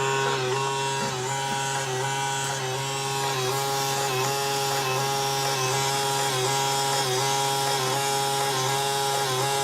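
Emergency Alert System attention tone: a steady electronic tone of several fixed pitches, held for about ten seconds with a slight pulse about twice a second, then cutting off.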